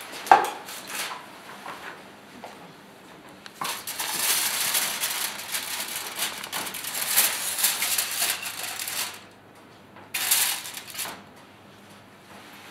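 Aluminium foil being peeled off a baking tin, crackling and rustling from about three and a half seconds in to about nine seconds, then again briefly near the end. A sharp clank of the tin comes right at the start.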